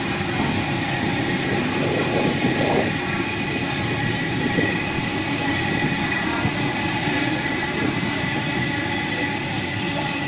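Sydney Trains Millennium (M set) double-deck electric train moving past along the platform: steady rolling wheel and running noise with a faint high whine, easing off as the last car goes by near the end.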